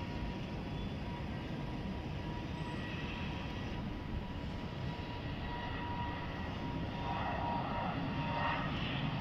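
Jet airliner's engines heard across the airfield as a steady noise, strongest in the low range, with a faint steady whine.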